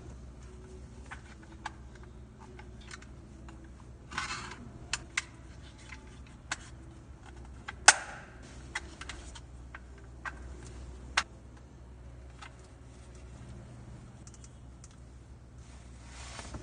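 Irregular sharp clicks and taps from a small plastic mirror LED desk clock being handled, with a short rustle about four seconds in and one louder click about eight seconds in, over a low steady hum.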